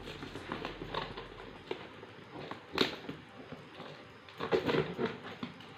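A parcel being opened by hand: packaging rustling and crackling in short irregular bursts, with a sharper crackle about three seconds in and a busier stretch near the end.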